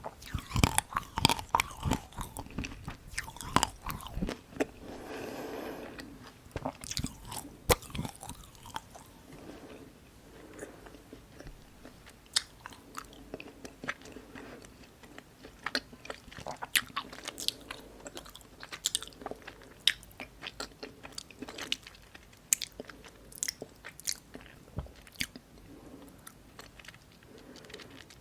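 Close-miked crunching and chewing of chocolate-coated bite-size ice cream (dark-chocolate Tico): dense crisp crunches for the first few seconds, then sparser crunches with softer chewing.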